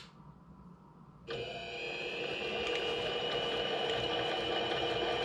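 A click, then about a second later a Harbor Freight mini lathe starts up and runs steadily at low spindle speed, with a steady motor and gear whine.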